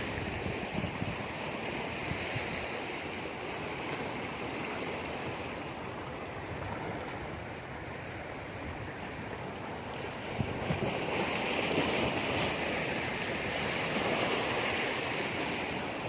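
Steady outdoor wind and water noise, like surf at the shore, with wind on the microphone, swelling a little in the second half.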